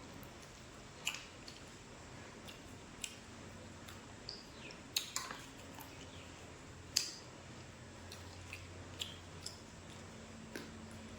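Scattered, irregular small clicks and soft squishes of food being handled and eaten, over a faint steady low hum.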